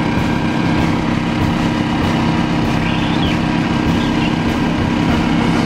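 Kubota diesel garden tractor engine running steadily under load as it drags a weight sled down a dirt pulling track.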